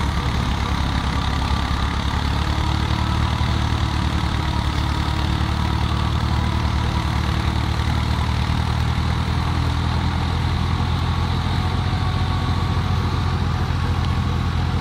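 Fiat 480 tractor's three-cylinder diesel engine running steadily under load, driving a wheat threshing machine through its PTO, together with the thresher working in one even drone.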